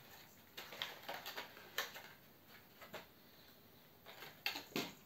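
Faint handling sounds of unpacking a boxed OO gauge model locomotive: scattered light clicks, taps and scrapes of the packaging, a little louder near the end.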